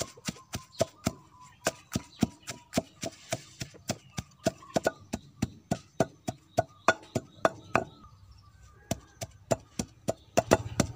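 Wooden pestle pounding fresh andrographis leaves in a clay mortar, about four strokes a second. It stops briefly near the end, then resumes.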